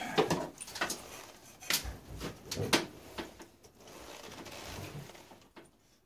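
A handful of sharp clicks and knocks, about five spread over the first four seconds, then a faint steady rustle.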